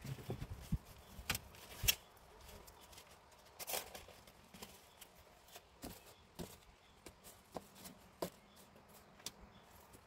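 Flattened cardboard sheets being handled and laid on the ground: scattered soft rustles and irregular sharp taps, the loudest just under two seconds in and again about four seconds in.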